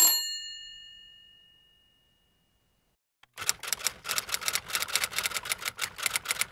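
A bell's ring dying away over about two seconds, then after a pause a manual typewriter typing in rapid keystrokes, about five a second, from about halfway through.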